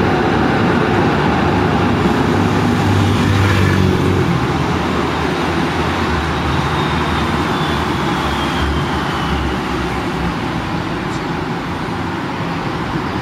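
Steady city street traffic: road noise from passing cars, with a vehicle engine running low that swells a little twice.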